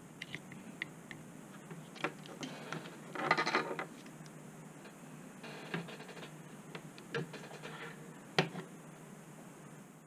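Light clicks and taps from small metal hand tools such as tweezers being handled on a workbench, with a short rattling scrape about three seconds in and a sharper click near the end.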